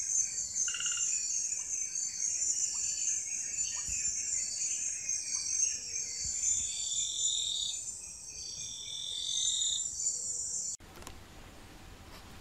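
Night chorus of insects, a steady high-pitched trilling, with other animal calls rising and falling over it. It cuts off suddenly near the end, leaving a much quieter outdoor background.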